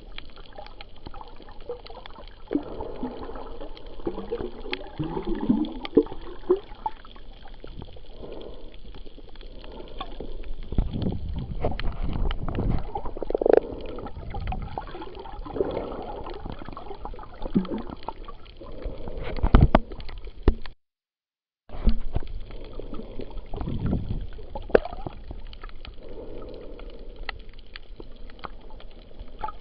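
Underwater sound heard through a snorkeler's camera: muffled sloshing and gurgling water with many small clicks and a few heavier low rushes. The sound cuts out completely for about a second around two-thirds of the way through.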